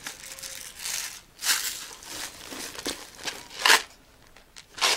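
Plastic zip bags of beads crinkling and rustling as they are handled, in a few short bursts, the loudest about three-quarters of the way through.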